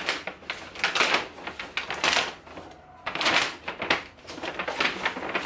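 Stiff paper gift bag rustling and crinkling against a cardboard box as it is pulled out, in several bursts of about half a second to a second each.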